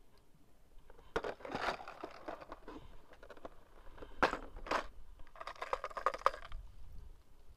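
Hands rummaging through a plastic tackle box of soft-plastic fishing lures: crinkling and rustling, with two sharp plastic clicks half a second apart near the middle.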